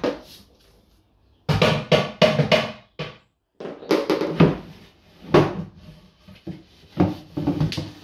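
Irregular bursts of loud drum-like bangs and knocks, in three clusters with short pauses between them.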